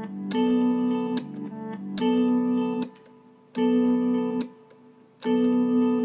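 Background music: a repeating chord pattern, each chord starting sharply and held about a second, with short gaps between.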